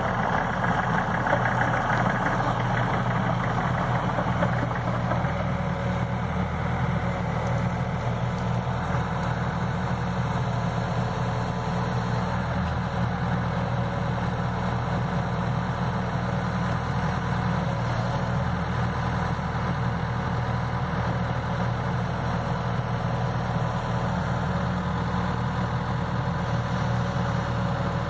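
A 2015 John Deere 60G mini excavator's diesel engine running steadily as its boom, arm and hydraulic thumb are worked, with a brighter, harsher sound over the first few seconds.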